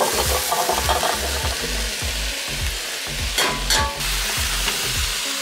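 Chopped root vegetables and squash tumbling into a hot stainless-steel pot of browned sausage and onions, which keeps sizzling. There is a clatter of pieces in the first second, and a wooden spoon knocks against the pot a little past halfway.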